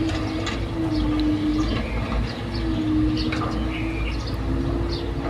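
Excavator at work: a steady low engine rumble with a hum that wavers and breaks off now and then, and scattered metallic clanks and squeaks throughout.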